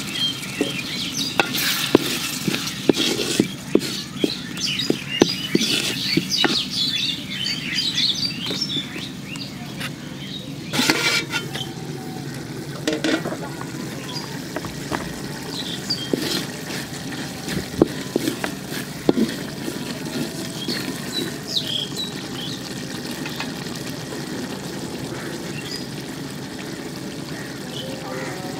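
Shrimp frying in spiced oil in an aluminium pot, sizzling steadily, while a spatula stirs and scrapes against the pot with many sharp clicks over the first several seconds. A louder knock comes about eleven seconds in.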